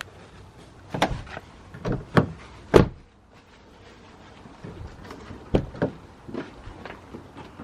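A series of knocks and clunks from parts being handled at a vehicle door: four heavier ones between about one and three seconds in, the loudest near the third second, then a few lighter ones.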